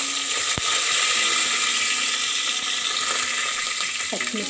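Oil sizzling in an aluminium pressure cooker as freshly added curry leaves fry with whole spices and cashews, a loud steady hiss. There is one sharp click about half a second in.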